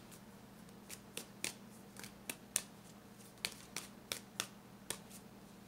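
Tarot cards being shuffled by hand: about a dozen sharp card clicks and snaps at irregular spacing.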